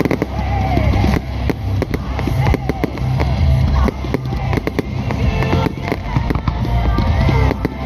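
Fireworks going off in rapid succession, a dense run of bangs and crackles, over music with a heavy bass.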